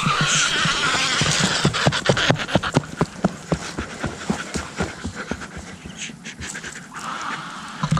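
Hard, rapid breathing mixed with a quick string of crackles and clicks, which thins out after about five seconds.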